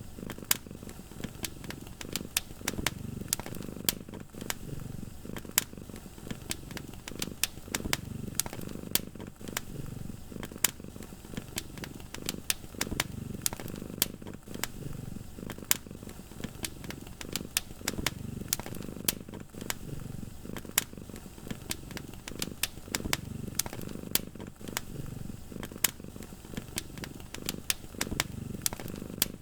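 Wood fire crackling with frequent sharp pops, over a cat's low, steady purring that swells and fades in a slow rhythm.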